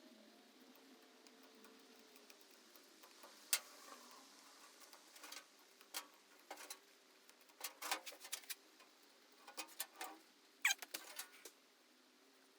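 Intermittent small clicks, taps and crinkling of material being handled by hand, with a brief squeak about ten and a half seconds in.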